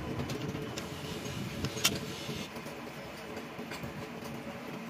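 Light metal clicks and one sharp metallic click a little under two seconds in, as a connecting rod is handled on a diesel engine's crankshaft journal, over a steady mechanical rumble and hum.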